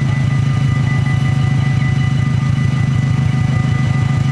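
Car engine idling with a steady low pulsing rumble. Level-crossing warning bells ring continuously above it as thin, steady high tones.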